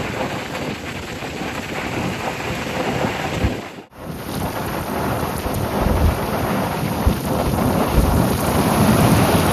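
Wind rushing over the microphone at the open window of a moving truck: a loud, steady roar with irregular low thumps of buffeting. It breaks off briefly about four seconds in.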